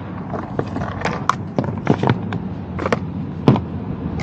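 Irregular sharp clicks and knocks from hardware and cable being handled during an antenna and enclosure install, over a steady low hum. The loudest knock comes about three and a half seconds in.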